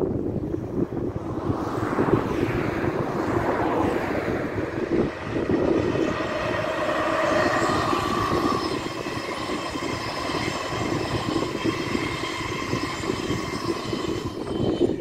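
Passing passenger train, the BB 7399 electric locomotive hauling a rake of Intercités night-train coaches. A dense rumble of wheels on rail swells as it nears. From about six seconds in, high steady whines ride over it while the coaches run past.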